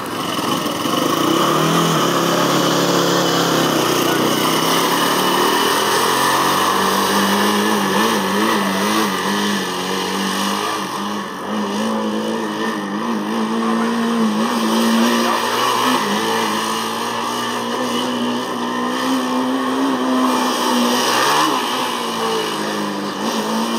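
A Formula Student race car's engine revving up and down over and over as the car weaves through a cone course, its pitch rising and falling with each turn.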